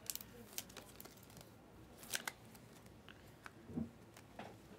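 Faint handling noise of trading cards: a few short, sharp clicks and rustles, with a dull thump shortly before the end.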